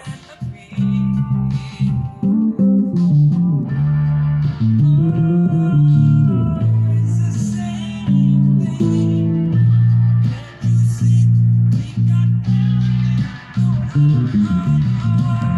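Instrumental music on guitar with a bass line, plucked notes changing every second or so.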